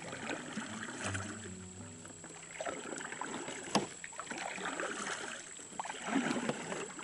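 Kayak paddle strokes: the blades of a double-bladed paddle dipping and pulling through creek water in a steady rhythm, a splash about every second and a half. A single sharp click about halfway through.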